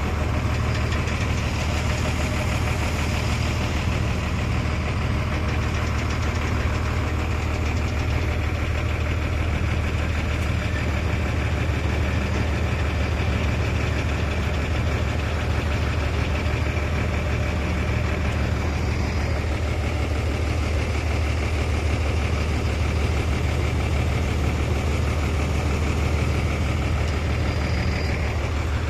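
Crawler-mounted rock drilling rig running steadily in a quarry: a heavy diesel engine drone with a fast, even rattle from the drilling.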